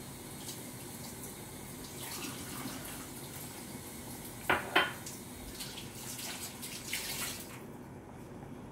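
A stainless steel pot of mung bean stew boiling on the stove, bubbling and spattering, with two sharp knocks close together about halfway through. The spattering stops shortly before the end.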